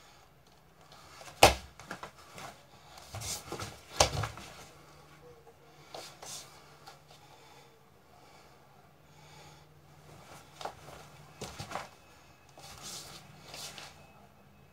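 Karate gi fabric snapping and rustling with the strikes and blocks of a kata, with two sharp cracks, about a second and a half in and about four seconds in, as the loudest moments.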